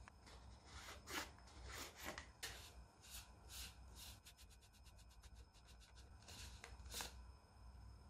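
Faint handling noise from a cast epoxy resin tube being unscrewed: short scrapes of resin rubbing on resin, with a quick even run of small clicks for about two seconds in the middle as the threads turn.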